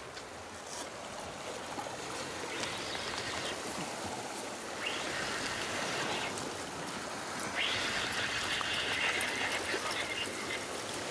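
Sea water washing and trickling over the rocks at the shoreline, swelling three times, with the last and longest surge the loudest.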